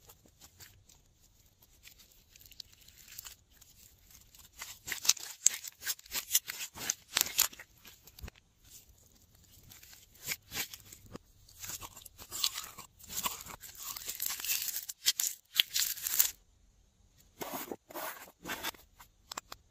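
Glossy blue glitter slime squeezed, stretched and folded by hand, giving fast runs of crackling clicks and pops, with a short pause near the end.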